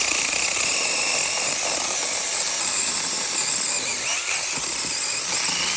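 ORBLON cordless mini chainsaw, running on a DeWalt 20V battery, cutting through the base of a shrub: a steady high electric motor whine with the chain rasping through the wood.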